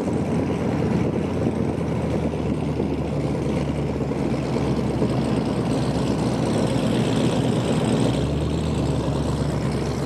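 Dodge Hellcat's supercharged V8 running at a steady low drone, with no revving.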